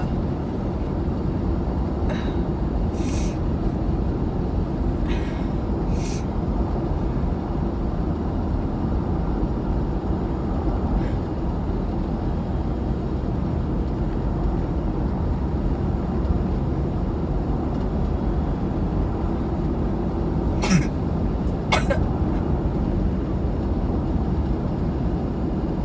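Steady road noise inside a moving car. Near the end come two short sharp sounds about a second apart: a stifled sneeze that comes out really chesty and sounds like a cough.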